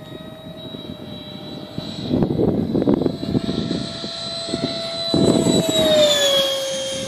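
Electric ducted fan of an RC L-39 Albatros jet model (90 mm Wemotec Midi Fan with an Arc inrunner motor) whining at a steady pitch with a rushing whoosh as it flies past. It grows louder, then drops in pitch about six seconds in as it passes by.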